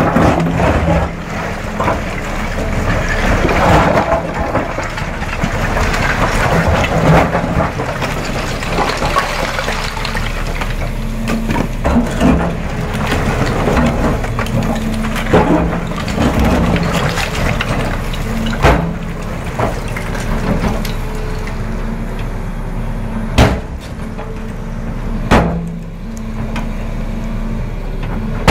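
Volvo EC380 excavator's diesel engine and hydraulics running steadily while its steel bucket scrapes and grinds against slate slabs, loudest in the first ten seconds. Later come a few sharp knocks of steel or slate on stone.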